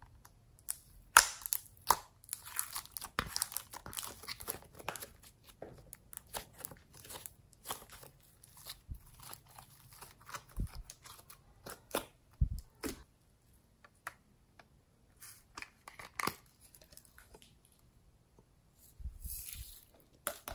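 Glossy slime being stretched and pulled by hand: a run of sticky crackles, clicks and small tearing sounds, densest in the first several seconds and sparser later.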